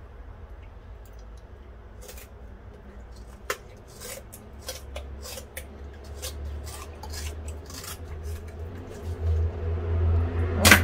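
A blade cutting open a large fish on cutting boards: scattered short clicks and scrapes against the board. A steady low hum runs underneath and grows louder near the end.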